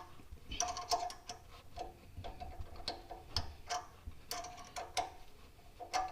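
Metal hand tools clinking and clicking against metal parts: irregular light metallic clicks, several with a short ring.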